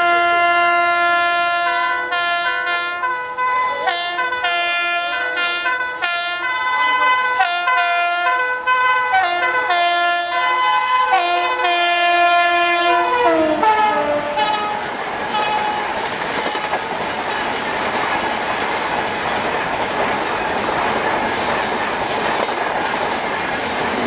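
WAP-7 electric locomotive's horn sounding a rapid string of short honks as it approaches, the pitch dropping as the locomotive passes about thirteen seconds in. Then the passenger coaches rush past with steady wheel and rail noise and clickety-clack.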